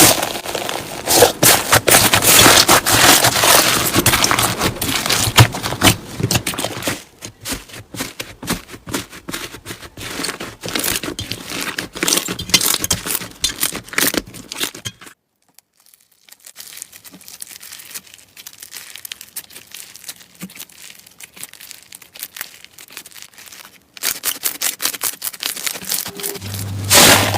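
Slime being squeezed and pressed by hand, making dense crackling and popping. It is loud for the first half, stops briefly about halfway, goes on more quietly, and turns louder again near the end.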